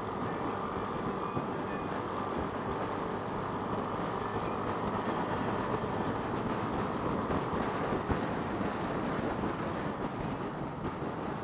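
Motorcycle running steadily at road speed, engine hum mixed with a constant rush of wind over the microphone.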